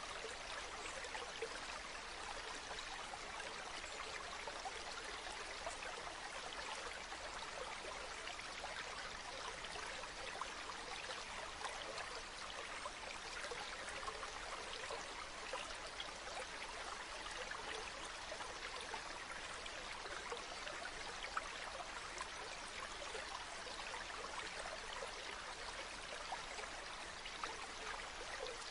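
Shallow water flowing over small pebbles: a steady stream rush flecked with many tiny splashes and trickles.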